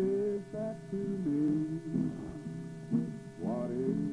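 A man singing slowly to his own acoustic guitar, holding long notes, with one note near the end scooping up in pitch as it begins.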